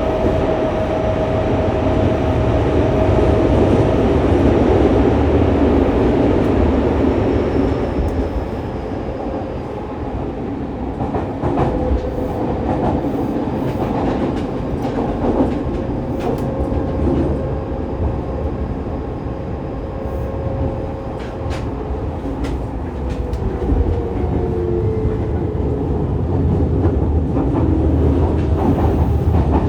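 Fukuoka City Subway 2000-series train (Hitachi GTO-VVVF inverter) running at speed, heard from inside the car: a steady rumble of wheels on rail with a motor tone that slides a little lower in the last few seconds. Short sharp clicks come in bunches about a third of the way in and again near the end.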